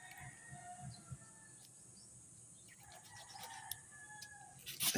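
A rooster crowing faintly, with a steady high hiss beneath it. A brief sharp knock just before the end is the loudest sound.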